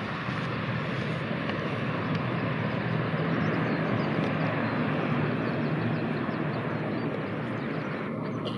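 Bombardier Dash 8-300's two Pratt & Whitney PW123 turboprop engines running loud and steady during the landing roll, easing off slightly near the end.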